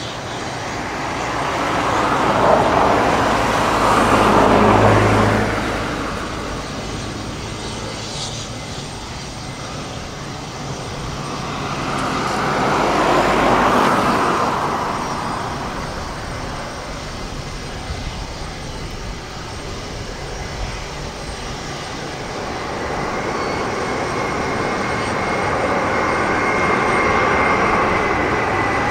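Twin-engine widebody jet airliner's engines, their noise swelling and fading twice as the plane comes in and lands. From about two-thirds of the way through, the engine noise builds steadily with a thin high whine as the plane rolls along the runway.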